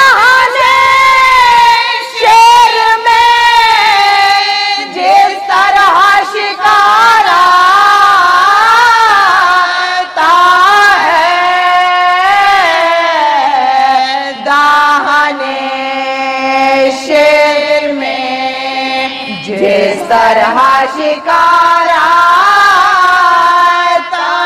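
A woman chanting a marsiya, an Urdu elegy, in long held notes that bend and waver slowly in pitch, with short breaks between phrases.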